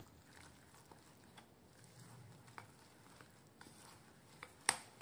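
Metal spoon stirring a crumbly flour-and-semolina dough mix in a glass bowl: faint scraping with scattered light taps against the glass, and one sharper clink near the end.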